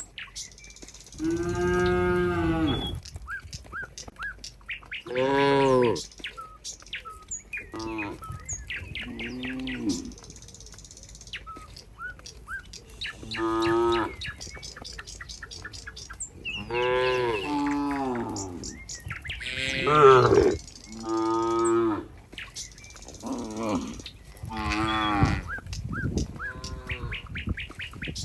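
Herd of cows mooing again and again: about ten long, drawn-out moos, some from different animals overlapping. Small birds chirp faintly between the calls.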